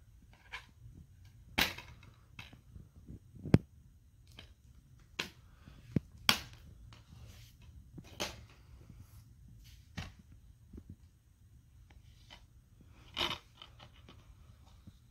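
Plastic DVD cases being handled and set down: a scattered series of sharp clicks and taps, a few louder than the rest, with quiet between them.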